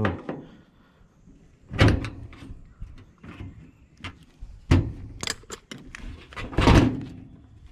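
A few separate clunks and knocks a second or more apart, the last of them the loudest.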